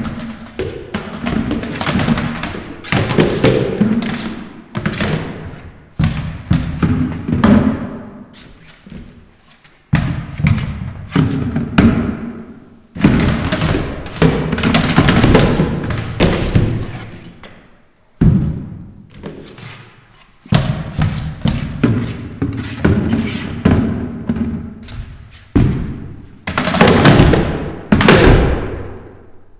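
Speed Stacks plastic cups clattering as they are rapidly upstacked and downstacked on a stacking mat: long bursts of fast clacks and taps, broken by several short pauses between sequences.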